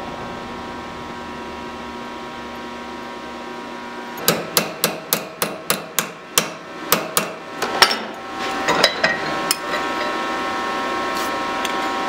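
Ball-peen hammer striking a thin mild-steel strip clamped in a steel bench vise: a quick run of about fifteen blows at three to four a second, starting about four seconds in and ending a few seconds later.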